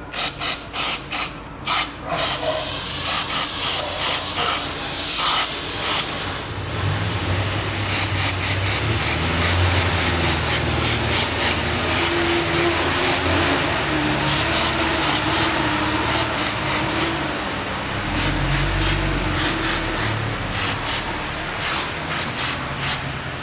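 Aerosol carburetor and throttle cleaner sprayed through a straw nozzle onto a throttle body, in many short hissing bursts. In the middle stretch the bursts come close together into near-continuous spraying, then break up into short bursts again.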